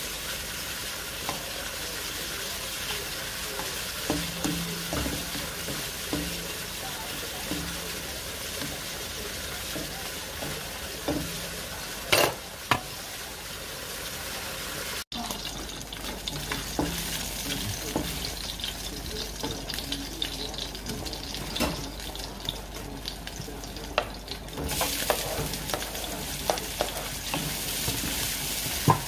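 Cubed meat sizzling in a nonstick wok while a spatula stirs and scrapes it, with scattered clicks and knocks of the spatula against the pan. The sizzle grows brighter near the end.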